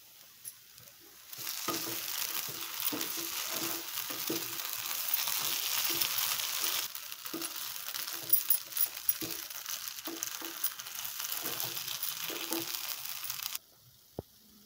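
Paneer cubes, masala and fresh curry leaves sizzling in hot fat in a nonstick frying pan while a spatula stirs and scrapes, knocking against the pan again and again. The sizzle starts about a second in, eases a little halfway through and cuts off suddenly near the end.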